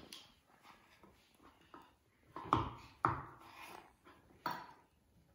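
Kitchen knife chopping chorizo into chunks on a wooden chopping board: a few soft knocks of the blade on the wood, the loudest two about halfway through and another near the end.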